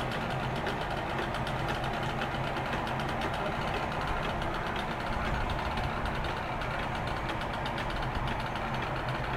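Small two-stroke Kinetic Honda scooter petrol engine running steadily, powering a homemade boat, with a fast even firing pulse.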